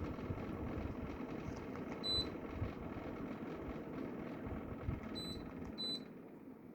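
Mabe inverter air conditioner indoor unit running with a steady hum, the noise that its owner reports as a problem. Three short high beeps cut through it: one about two seconds in, then two close together about five seconds in.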